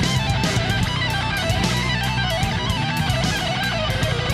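Background music: electric-guitar rock with a steady beat and a moving lead melody.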